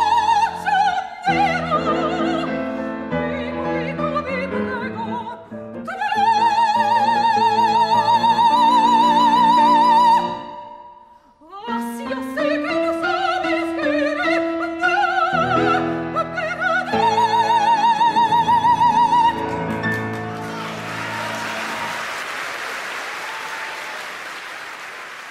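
Operatic singing with piano accompaniment, the voice holding long high notes with a wide vibrato. The song ends about twenty seconds in and applause follows, fading away.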